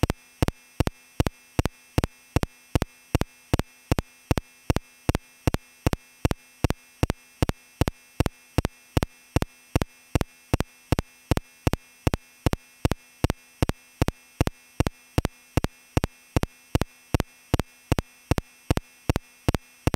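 Sharp electronic ticking at a perfectly steady pace of about two and a half ticks a second, like a metronome or click track, over a faint steady hum.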